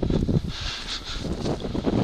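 Wind buffeting a head-worn camera's microphone, an irregular low rumble with some rustling.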